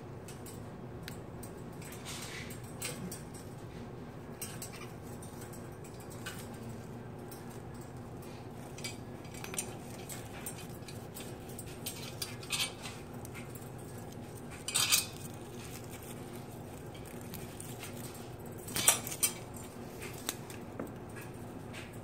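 Young cockatiels playing on a wire cage top: scattered clicks, taps and rattles of hanging plastic toys, plastic rings and cage wire. A few louder knocks come about two-thirds of the way through and again near the end, over a steady low hum.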